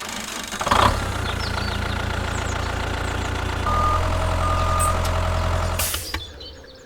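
A vehicle engine running steadily, growing louder about halfway through, with two short high beeps in the middle; it cuts off near the end.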